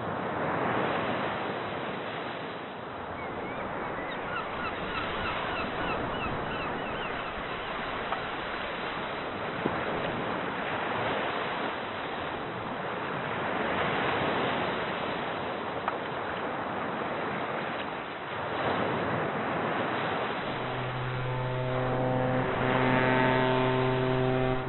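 Sea waves washing in, the rush swelling and ebbing every several seconds, with a run of short bird chirps about four seconds in. About twenty seconds in, a steady, low horn-like tone sets in and holds.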